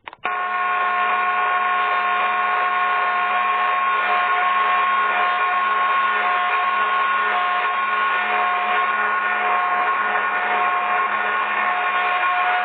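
Ceiling fan motor switching on abruptly and running steadily: a loud whir with several steady whining tones over it.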